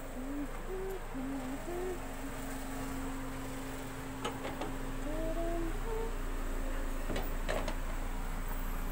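A girl humming a tune softly in short, separate notes, over a steady low hum. A few sharp clicks come from the phone being handled, about four and seven seconds in.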